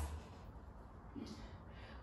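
Quiet room tone, with one brief faint sound a little over a second in.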